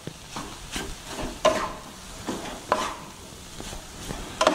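Wooden spatula stirring and scraping egg noodles around a frying pan, in short strokes about once a second, over a steady sizzle of frying.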